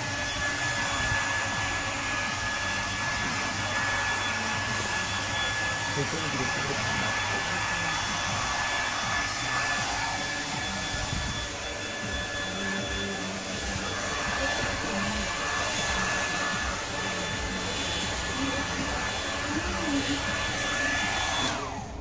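Handheld hair dryer blowing steadily as it dries a dog's wet coat: a rush of air with a thin, steady high whine on top. It switches off near the end.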